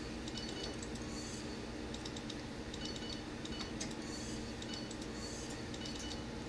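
An English budgie's beak and tongue clicking and tapping on a vertical blind slat as it licks it: small, light clicks in clusters about every second. A faint steady hum runs underneath.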